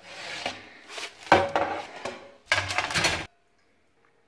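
Metal baking tray and oven rack clattering and scraping as a pizza is pulled out of the oven, with a few sharp clanks and a louder clatter near the end; the sound cuts off suddenly a little over three seconds in.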